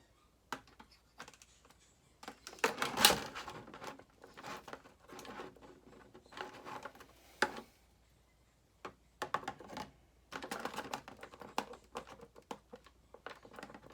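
Handling noises from an action-figure box and its packaging: irregular clicks, taps and rustles in short bursts, with a brief quiet pause a little past halfway.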